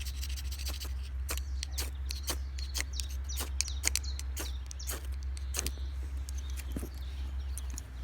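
Campfire kindling catching: shredded poplar bark tinder and small sticks crackling and snapping irregularly as they begin to burn, over a steady low rumble.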